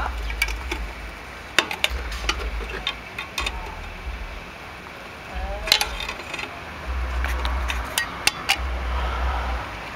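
Scattered metallic clicks and clinks of steel pliers working the spring hardware on a rear drum-brake shoe, with an intermittent low rumble underneath.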